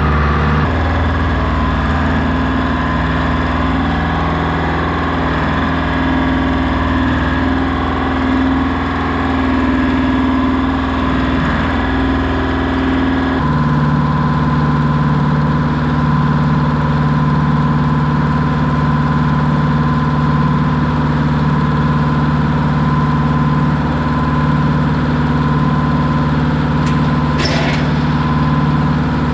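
Tractor engine running steadily; about halfway through its note changes abruptly to a different steady pitch, as when the load or throttle changes.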